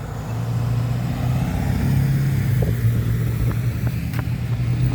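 Road traffic: a vehicle engine running steadily with a low hum, with a few faint clicks over it.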